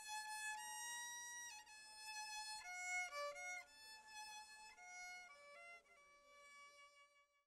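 Solo violin played quietly: a slow melody of held, bowed notes stepping up and down in pitch, dying away about six seconds in.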